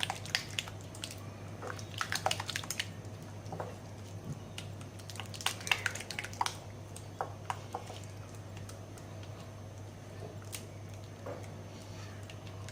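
A spoon stirring a thick mix of mayonnaise and chili sauces in a bowl: soft squelching with scattered light clicks of the spoon against the bowl, thinning out in the second half, over a steady low hum.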